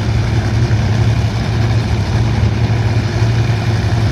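Nitro-burning drag racing engine idling with a steady, loud, low rumble.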